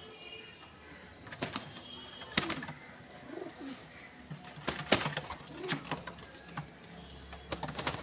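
A rock pigeon and a collared dove pecking grain off a wooden tabletop: a few sharp taps of beaks on the wood, with soft low coos in between. Near the end comes a flurry of wing flaps as the birds take off.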